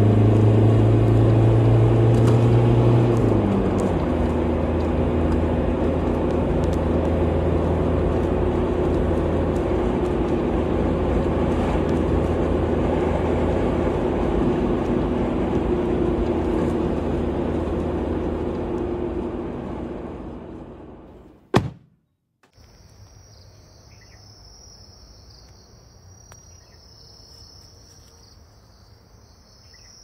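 Car driving, heard from inside the cabin: steady engine hum and road noise, the engine note dropping about three seconds in, then fading out after about twenty seconds. A sharp click and a brief silence follow, then insects give a faint, steady high drone.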